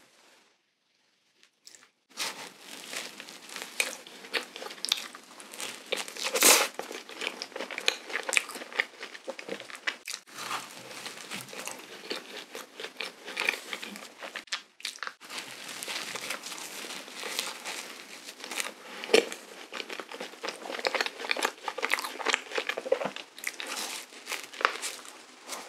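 Close-miked biting and chewing of a soft, sugar-dusted, cream-filled donut: a dense run of sticky mouth clicks and smacks, starting about two seconds in.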